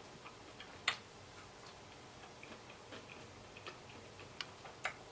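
Close-up eating sounds: scattered sharp clicks and smacks of chewing, at irregular intervals, the loudest about a second in and two more near the end.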